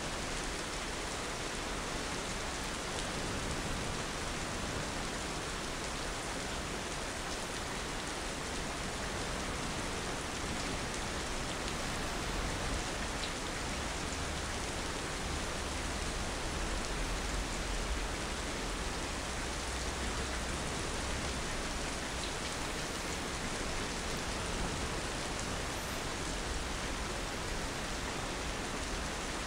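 Steady rain falling: an even hiss of rainfall with faint scattered droplet ticks.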